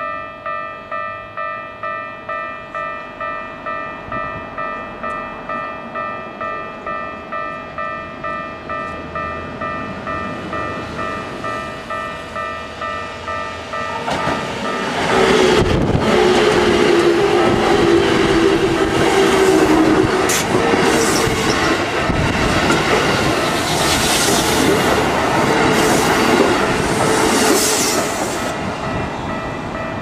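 Japanese level-crossing bell ringing in steady pulses about twice a second. About fifteen seconds in, a Keikyu 1500 series electric train runs through the crossing at speed, loud with wheels clattering over the rail joints. The train noise eases near the end while the bell keeps ringing.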